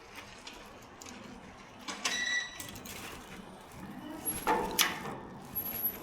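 Clicks and knocks of things being handled, with a short electronic beep about two seconds in and a louder knock near the end.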